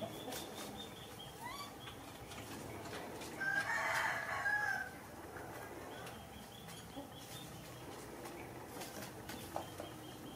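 A rooster crowing once, about three and a half seconds in, lasting about a second and a half, over faint background ticks and rustling.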